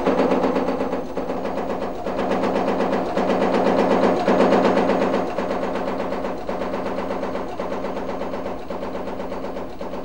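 Jacquard card-punching machine running, a fast, repetitive mechanical clatter over a steady hum.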